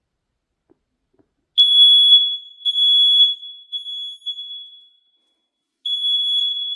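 Hardwired smoke alarm set off by smoke, sounding a shrill single high tone. It starts about one and a half seconds in with a few short pulses, breaks off for about a second, then comes back steadily.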